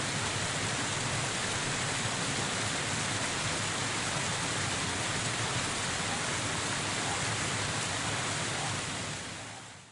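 Waterfall: a steady rush of falling water that fades out near the end.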